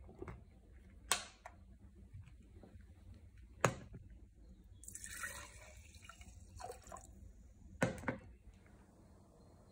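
Glass jars of murky liquid handled on a tabletop: a screw lid twisted off and jars set down, giving sharp knocks and clinks about a second in, near four seconds and around eight seconds, with faint liquid sloshing in between.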